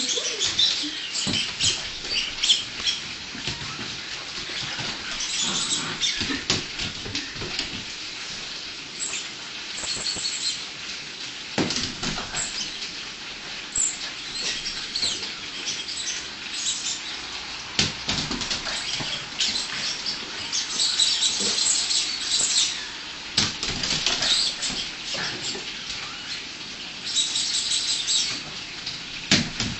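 A puppy scrabbling after rubber toy balls: its claws clicking and scratching on a hardwood floor and a rug, with irregular knocks as the balls hit the floor and cabinets, a few of them louder.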